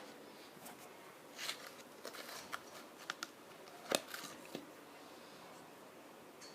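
Stylus packaging being handled and opened: scattered light clicks and short rustles, with one sharper, louder click about four seconds in, then quiet.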